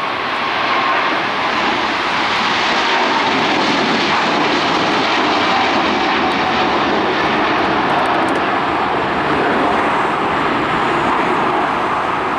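Boeing 777 freighter's two GE90 turbofan engines at takeoff thrust as the jet lifts off and climbs away: a loud, steady jet rush with a faint whine that drops slightly in pitch over the first couple of seconds. The sound cuts off suddenly at the end.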